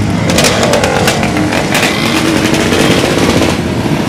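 A crowd of small motorcycles, dirt bikes and scooters running together, engines idling and revving now and then.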